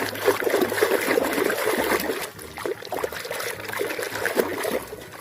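Water trickling and splashing as a toy car is washed by hand, with many small irregular splashes.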